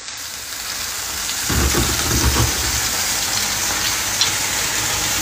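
Steady hiss of heavy rain, with a short low rumble about a second and a half in.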